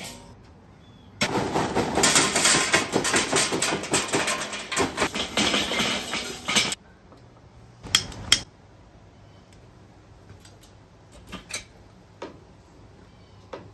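Charcoal briquettes poured onto the charcoal grate of a Weber kettle grill, a dense clattering rattle lasting about five seconds. It is followed by two sharp metal clanks about half a second apart and a few light knocks.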